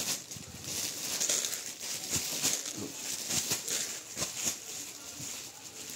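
Cloth suit pieces and their plastic wrapping rustling and crinkling as they are handled and moved about, in a run of irregular, uneven rustles.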